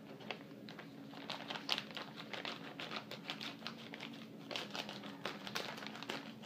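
Scissors cutting open a plastic courier pouch, the plastic crinkling in quick, irregular clicks that pick up about a second in.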